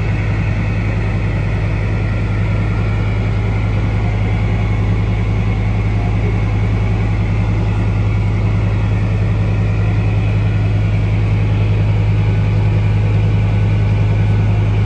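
Puma infantry fighting vehicle's MTU V10 diesel engine idling while the vehicle stands still: a steady deep hum that grows slightly louder toward the end.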